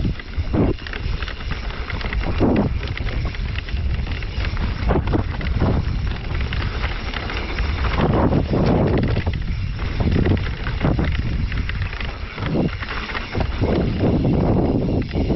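Mountain bike riding down a rough trail: tyres rolling over dirt, roots and rocks, with frequent knocks and rattles from the bike over bumps and wind buffeting the microphone.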